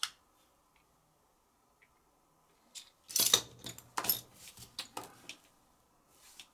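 Small hard parts and tools clicking and clattering as a butane lighter is worked on: one click at the start, then a run of sharp clicks and rattles about three to five seconds in.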